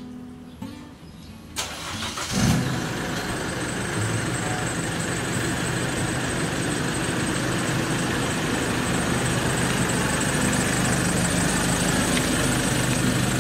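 A car engine starts about two and a half seconds in with a brief surge, then settles into a steady idle. Guitar music fades out just before the start.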